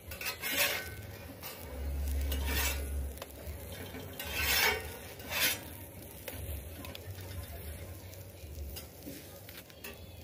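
Metal spatula scraping across a steel comal as a folded tlayuda is slid and turned over. There are several short scrapes, most of them in the first six seconds.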